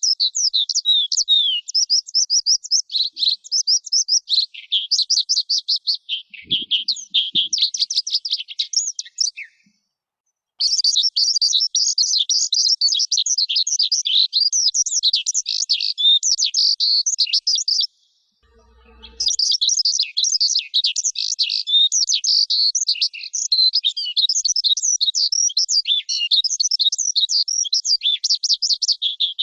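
Lark singing a long, rapid, high-pitched warbling song of quick twittering notes. It breaks off briefly twice, about 10 and 18 seconds in.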